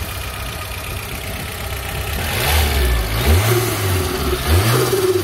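Volvo 460 Turbo's turbocharged four-cylinder engine running with an open cone air filter, blipped twice: the pitch rises and falls about three seconds in and again near the end.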